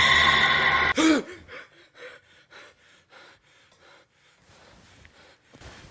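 A loud, harsh burst of noise cuts off about a second in. A man then gasps sharply as he jolts awake, followed by quick, short, heavy breaths that die away.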